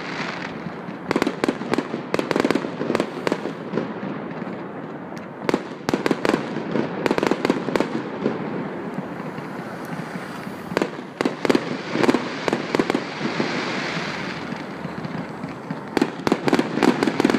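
Aerial fireworks display: volleys of sharp bangs and crackles from bursting shells, coming in clusters of a few seconds with quieter spells between, over a steady background noise.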